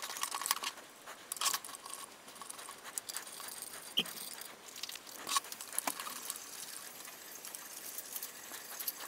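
Faint, scattered light metallic clicks and taps of a hex screwdriver turning screws loosely into the black-plated aluminium Y-axis frame of a Prusa i3 MK3 3D printer, with small screws clinking.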